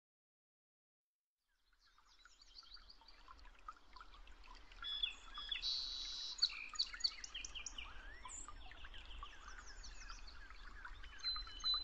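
Several small birds chirping and calling at once, fading in about two seconds in and continuing as a busy outdoor chorus over a faint low rumble.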